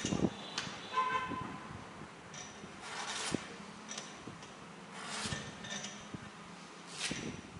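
Hinged lever blade of a manual tender-coconut cutting machine slicing the husk off a green coconut: three scraping strokes about two seconds apart, with a few knocks and a brief ringing tone about a second in.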